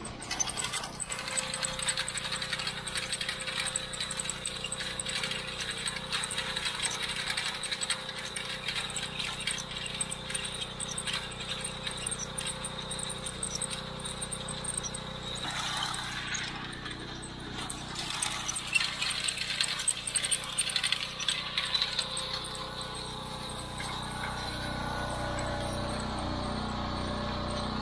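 John Deere 33 hay elevator running, its freshly oiled chain clattering and rattling over the sprockets and along the frame, with the driving engine running steadily underneath. After about 24 seconds the clatter thins and the engine is heard more.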